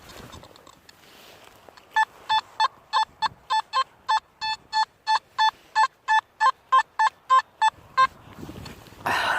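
Metal detector beeping in short, even, single-pitched pulses, about three a second for some six seconds, signalling a metal target in the hole. A brief scuffing noise comes near the end.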